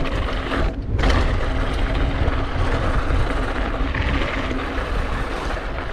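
Hardtail mountain bike riding fast down a loose dirt trail: wind rushing over the action-camera microphone as a steady low rumble, mixed with the hiss and crunch of the tyres over loose dirt and gravel. The high end dulls briefly about a second in.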